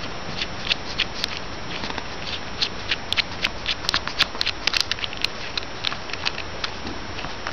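Irregular small clicks and taps of a small tripod's metal mounting screw and washer being fiddled with by hand close to the microphone, coming thickest through the middle, over a steady hiss.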